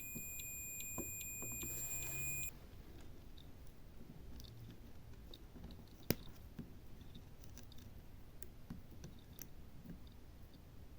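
Multimeter continuity beeper giving a steady high beep across the phone's power-button contacts, showing the button is still shorted; the beep cuts off about two and a half seconds in. Faint small clicks follow, with one sharper click about six seconds in.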